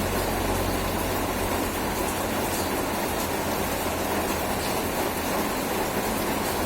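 Heavy rain falling steadily, a dense even hiss with faint scattered drop ticks and a low steady hum underneath.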